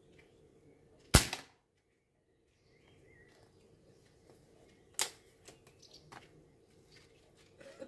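Old scoped air rifle firing once about a second in, a single sharp crack with a short tail. About four seconds later comes a sharp click, then several smaller clicks as the rifle is worked and cocked for the next shot.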